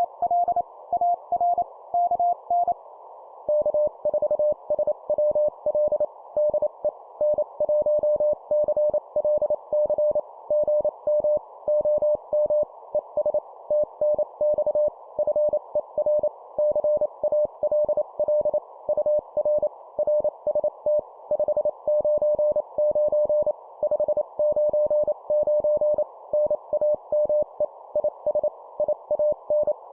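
Morse code (CW) sent at 25 words per minute as a keyed tone over a narrow band of hiss, like a radio receiver's CW filter. One station's higher-pitched signal ends about three seconds in. After a short gap the other station answers at a slightly lower pitch.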